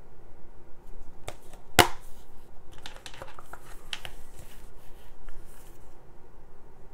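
A plastic Blu-ray case and its printed paper inserts being handled. There is one sharp click a little under two seconds in, then a run of lighter clicks and rustling as a card insert is taken out.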